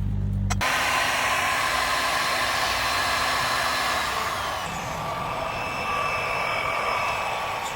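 Powered machinery running steadily, a motor noise with a high whine. About half a second in, a low hum cuts off abruptly and the whining machine sound takes over.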